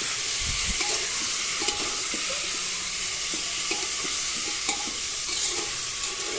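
Raw chicken pieces sizzling in hot oil with browned onions in an aluminium pressure cooker, stirred with a spatula that scrapes the pot and clicks against it now and then.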